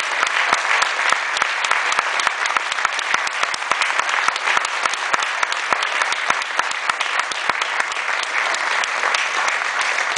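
Theatre audience applauding: dense, steady clapping from a full house.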